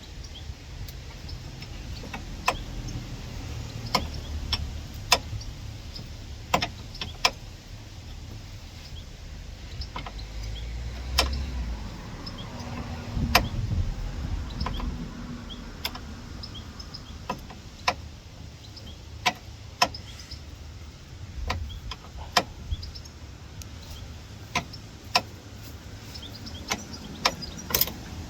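Sharp metallic clicks, one every second or so at an uneven pace, as a 21mm spanner works the top nut of a BMW E92 front shock absorber while a T40 Torx bit holds the centre shaft; the nut is getting harder and harder to turn. A low rumble runs underneath and swells in the middle.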